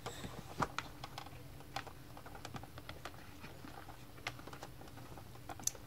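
Faint, irregular small clicks and taps of a plastic toy spoon against a Baby Alive doll's plastic mouth and a plastic plate, made by handling during spoon-feeding.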